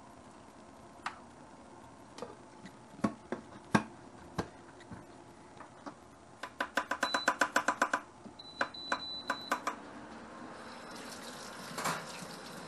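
A metal spoon clinks against saucepans: a few separate clinks, then a quick run of about eight clinks a second as sauce is stirred in a small pan. A short high beep follows, and near the end a kitchen tap runs into a stainless steel sink.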